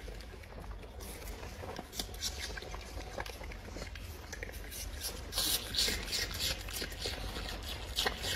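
A red panda chewing a piece of food held in its front paws: a run of short crunching, rasping bites, loudest and quickest a little past the middle.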